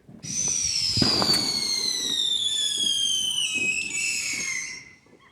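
Fireworks: a whistling firework gives a long shrill whistle that falls steadily in pitch for about four and a half seconds, then stops. A dull boom of a burst sounds about a second in.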